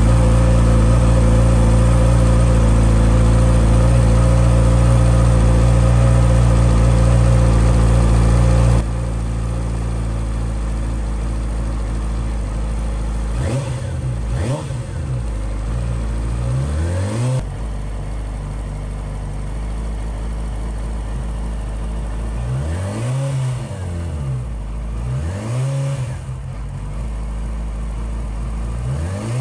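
Yamaha R6's inline-four engine running: a loud, steady high idle that drops sharply about nine seconds in to a lower idle, then several short throttle blips, a group in the middle and a few more near the end.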